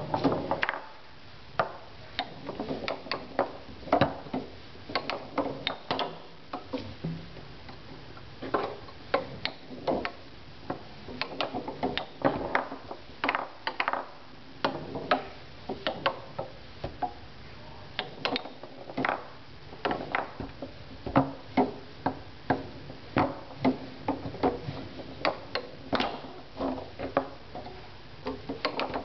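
Tornado foosball table in play: sharp, irregular clicks and knocks, several a second, as the ball is passed and trapped between the plastic men and the rods are shifted, with a brief lull about a second in.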